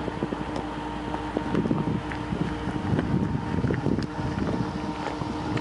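Wind buffeting the microphone in gusts, with a steady low hum underneath.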